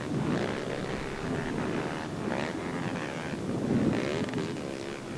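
Motocross dirt bikes racing on the track, several engines heard at once, their pitch rising and falling as riders open and close the throttle, with one swell loudest nearly four seconds in.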